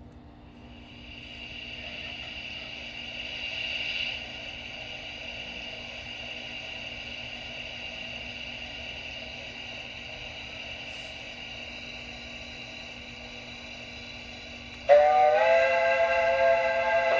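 Sound module of an LGB G-scale HSB Mallet model steam locomotive: a steady hiss of steam builds over the first few seconds and then holds. About 15 seconds in, a loud chime-like steam whistle of several tones starts suddenly and is held.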